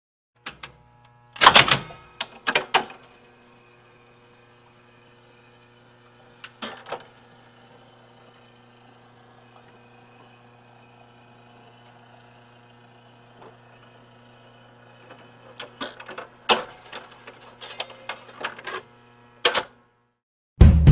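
A steady low hum with scattered sharp clicks and knocks: a cluster about a second and a half in, a couple more near the middle, and a busier run over the last five seconds. A drum kit comes in right at the very end.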